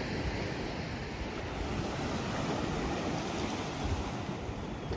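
Andaman Sea surf washing steadily onto a sandy beach.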